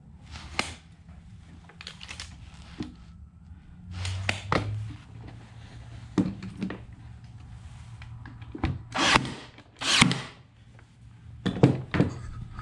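Cordless staple gun firing several times at irregular intervals, driving staples to fasten wooden shelf strips, with lighter knocks of the wood being handled in between.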